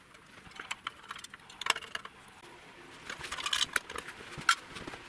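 Irregular light clicks and metallic taps from handling small parts and tools on a model truck trailer. The taps grow busier in the second half, with the sharpest one about four and a half seconds in.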